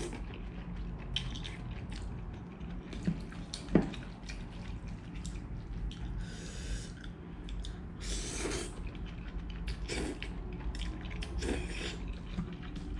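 Person eating saucy, slightly sticky fried prawn noodles with a fork: wet chewing and small mouth clicks throughout, with two longer slurps near the middle.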